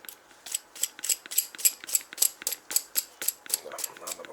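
Ratchet wrench clicking steadily, about four sharp clicks a second, as it turns the nut on a bolt-and-socket bearing press.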